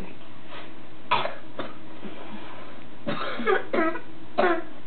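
A person with a cold coughing several short times, in small clusters with brief pauses between.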